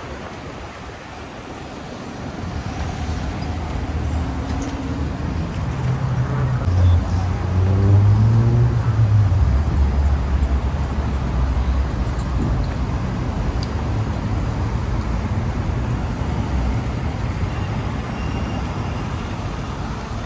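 Street traffic with a steady hum of road noise. About six seconds in, one vehicle passes close; its engine note glides up and then down, and it is the loudest sound for a few seconds before the general traffic hum takes over again.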